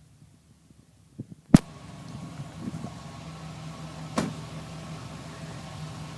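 A few faint low thumps, then a sharp click about a second and a half in. After the click a car engine idles steadily, with another click about four seconds in.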